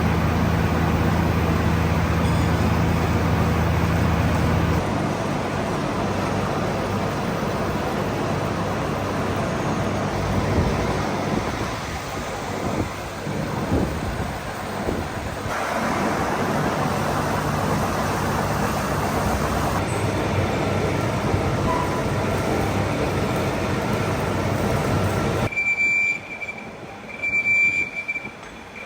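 Metalworking machinery running in a machine shop: steady mechanical noise that changes abruptly several times, and a high steady whine that starts and stops in the last few seconds.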